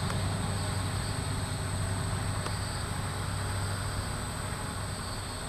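RCTimer 800 hexacopter's six SunnySky 600 kV brushless motors spinning 13x6.5 carbon-fibre props, a steady drone while it hovers overhead.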